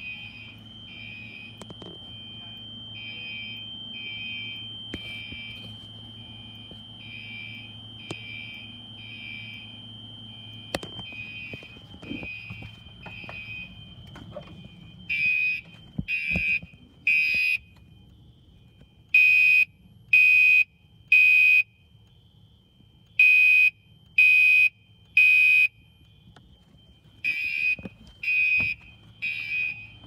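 Home smoke alarms sounding the three-beep evacuation pattern: groups of three high beeps about a second apart, with a pause between groups. For the first half they are fainter, with a steady high tone alongside. From about halfway on, the beeps are loud and close.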